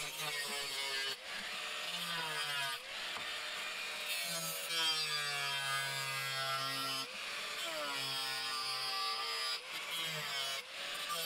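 Angle grinder with a cut-off disc cutting through 2 mm steel plate along a marked line. The motor's whine sags in pitch each time the disc bites into the steel and climbs back as the load eases, several times over, above a steady hiss of the cut.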